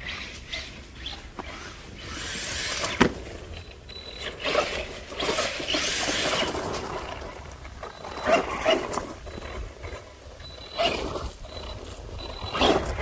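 Arrma Senton 3S brushless RC monster truck driving in snow: repeated bursts of throttle with motor whine and tyres churning snow, and a sharp knock about three seconds in, like a landing.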